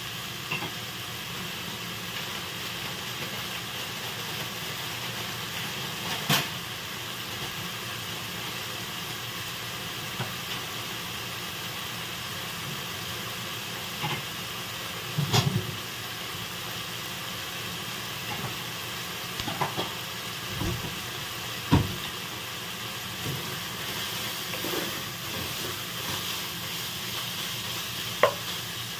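Shredded chicken, onion and garlic sizzling in oil in a nonstick pan, a steady frying hiss. A few short knocks of a wooden spatula against the pan come now and then, one near the end.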